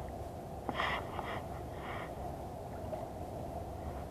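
A man's short breathy gasps, a few of them between about one and two seconds in, over a steady low background rumble.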